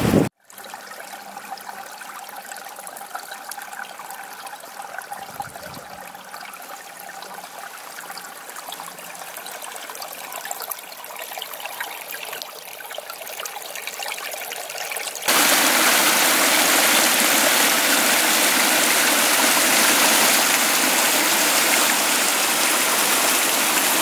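Small moorland stream trickling over rocks, a light burbling that about fifteen seconds in suddenly becomes a much louder, fuller rush of running water.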